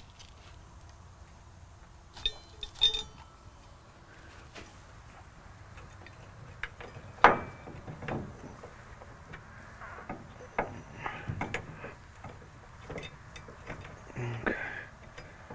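Scattered metallic clinks and taps of a steel bolt and mounting bracket being handled and hand-threaded into a truck's bed frame hanger. A few clicks ring briefly a couple of seconds in, and the sharpest click comes about seven seconds in.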